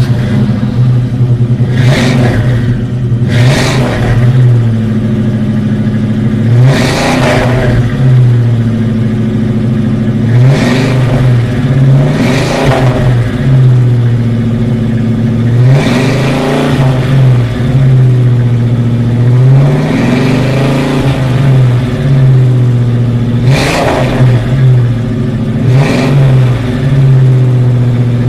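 Muscle car engine idling with a deep, bass-heavy note and being revved in short blips about every two to three seconds, the pitch climbing and dropping back each time.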